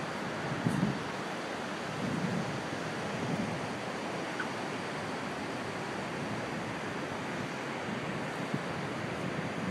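Gulf surf washing steadily onto a sandy beach, with wind buffeting the microphone in a few low gusts during the first few seconds.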